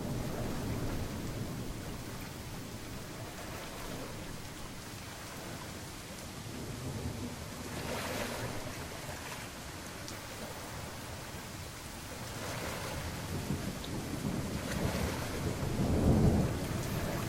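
Steady heavy rain with rolling thunder: a rumble fading away at the start, and a louder low rumble swelling up about a second before the end.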